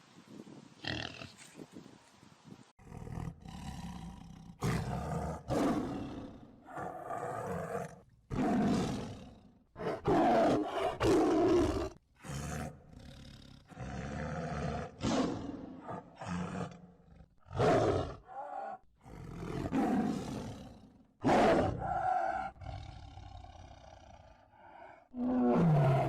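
A big cat roaring again and again, each call lasting about a second with short pauses between.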